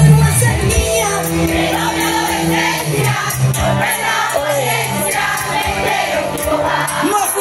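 Live pop band music through the PA, with guitars, drums and keyboards, heard from among the audience, and singing over it that the crowd joins in.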